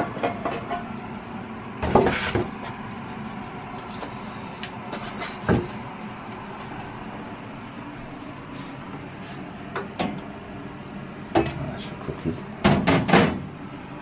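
Scattered knocks and clunks of handling kitchen things, including a microwave tray, with a louder cluster of clunks near the end as the door of a built-in microwave is opened. Steady background noise runs underneath.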